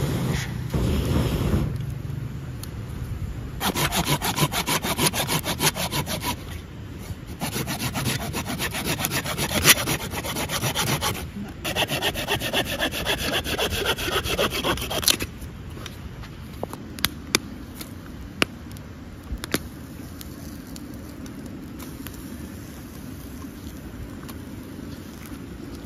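A hand pruning saw cutting through a small log in quick back-and-forth strokes, in three bouts with short pauses. After that it goes quieter, with a few sharp cracks.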